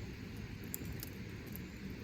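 Wood campfire crackling faintly, a few sharp pops over a steady low outdoor rumble.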